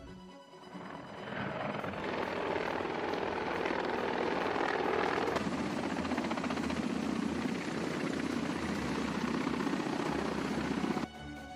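Mi-24 attack helicopter flying past, its main rotor beating with a rapid chop over the turbine noise. It fades in about a second in and cuts off abruptly near the end.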